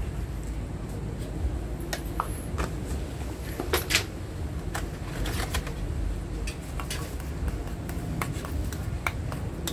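Scattered clicks and clinks of kitchen handling: a jar and its plastic lid moved about, the loudest clicks about four seconds in, then a metal spoon stirring and scraping pepper sauce in a stainless steel bowl. A steady low rumble lies underneath.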